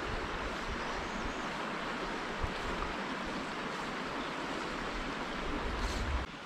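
Shallow stream running steadily over rocks in a riffle, with some wind rumble on the microphone. It drops away suddenly near the end.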